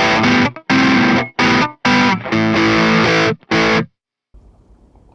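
Distorted electric guitar through a modelled Mesa Boogie Mark IIC+ amp, on a high-gain rock rhythm patch: short, choppy chord stabs with silent gaps between them. The playing stops about four seconds in, leaving a faint amp hum.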